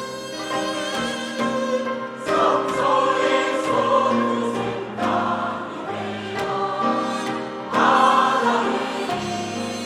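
A Korean traditional-music (gugak) church choir singing a hymn in parts over sustained accompaniment. The singing swells louder about two seconds in and again near eight seconds.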